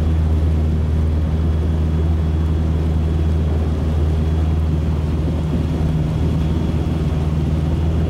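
Motorboat engine running steadily at low speed, a constant low drone.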